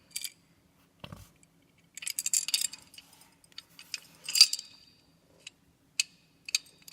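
Metal clicks, clinks and scraping of a Colt 1911 pistol being taken apart, as the slide is worked off the frame rails and parts are handled. The scraping comes in two short runs, a couple of seconds in and again past the middle, with scattered sharp ticks near the end.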